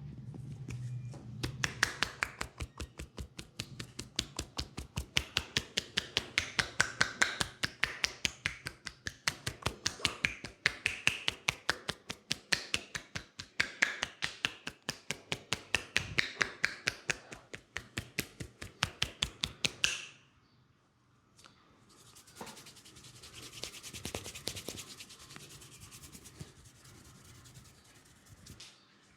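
Hands striking a person's head during a head massage: a fast, even run of crisp slaps or snaps, about four to five a second, that stops about two-thirds of the way through. Then comes a softer rubbing hiss of hands working over the hair and scalp.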